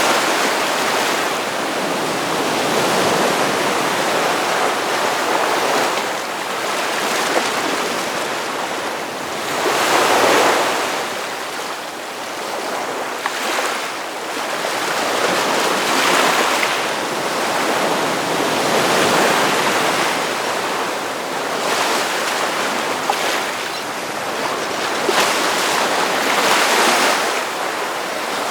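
Ocean surf: waves breaking and washing up a sandy beach in a continuous hiss that swells and eases every few seconds as each wave comes in.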